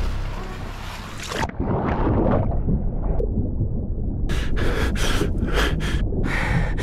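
A person plunging into muddy water and swimming under a wall: splashing, then about a second and a half in the sound suddenly turns dull and muffled as it goes under the water. From about four seconds in come a run of short splashes and hard breaths on coming back up.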